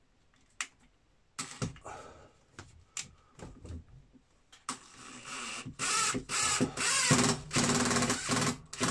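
Electric drill running in three runs of about a second each, after a few handling clicks and knocks.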